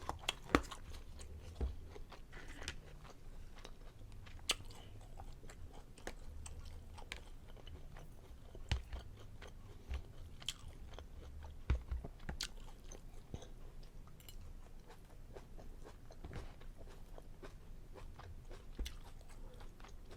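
A person chewing food with irregular, scattered wet mouth clicks and smacks.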